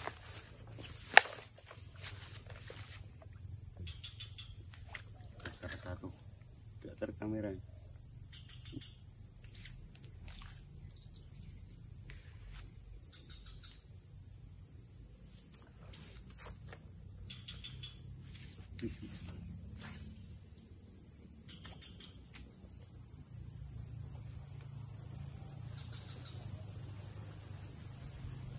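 Steady high-pitched drone of insects over a swamp, with scattered short calls and a single sharp click about a second in.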